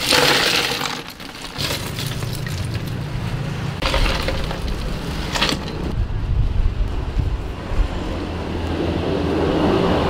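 Ice cubes poured out into a container, clattering and cracking against each other, loudest in the first second, with more short clattering bursts about four and five and a half seconds in. A low steady rumble sits underneath from about a second and a half on.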